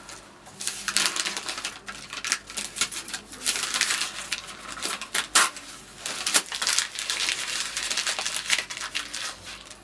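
Paper rustling and crinkling in quick, irregular scratchy bursts as notebook pages are handled and a sheet is crumpled in the hand.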